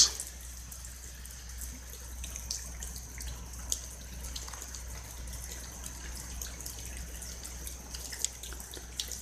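Rain falling steadily, with scattered drips ticking.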